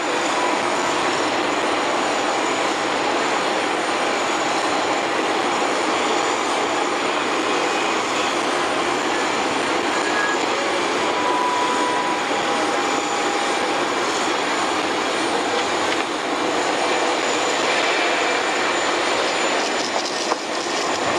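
Steady, loud rushing noise in the cabin of an Indonesian Air Force airliner standing on the ground, with faint steady tones running through it. The sound changes a little near the end.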